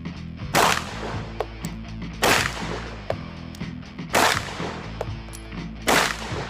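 Sig Sauer M11-A1 9mm pistol fired four times in slow, aimed single shots a little under two seconds apart, each sharp report followed by a brief ring-out.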